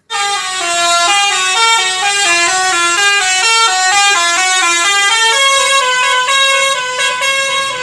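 Indonesian 'telolet' bus horn playing a tune: a multi-tone air horn stepping quickly between notes, the notes held longer from about five seconds in.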